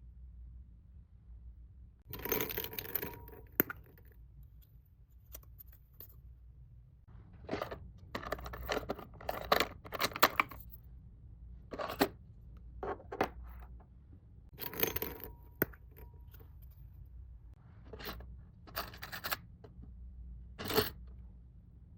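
Packaging and small items being handled: irregular spells of rustling, tearing and scraping, with small sharp clinks between them.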